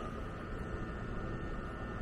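Stationary E261 series Saphir Odoriko limited express train idling at the platform: a steady hum and hiss with a high whine held on one note.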